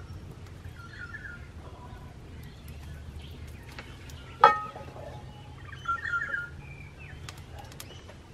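A metal frying pan set down on the fire with one sharp clank about halfway through. Birds chirp twice in the background, and small crackles come from the wood fire.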